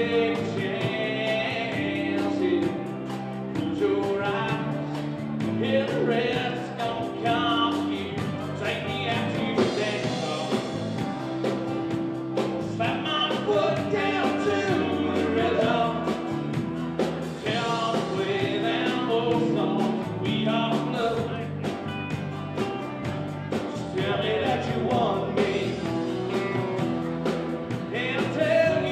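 Live country band playing a song: a male lead voice singing over acoustic and electric guitars, bass and drums.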